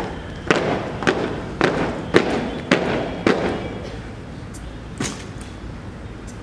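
A squad of drill cadets stamping their boots on tarmac in unison, six sharp stamps about two a second as they march, turn and halt, then one more single knock about five seconds in.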